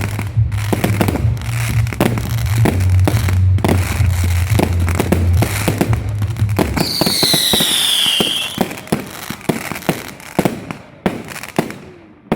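Fireworks going off in rapid succession: dense bangs and crackles over a steady low drone that stops about halfway through. A whistle falls in pitch for about a second and a half just past the middle, and the bangs then thin out and grow quieter.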